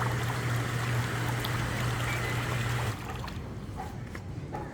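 Swim spa jet pump running with a steady low hum over rushing, churning water, then shutting off about three seconds in. The hum stops and only quieter trickling water is left.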